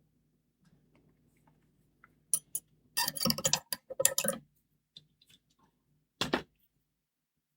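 Metal clicking and rattling of a four-lever Belfry 67 padlock and its lockpicking tools as they are handled and set up for picking. The sound comes in short clusters of clicks: a busy stretch from about two to four and a half seconds in, and one more short rattle near six seconds.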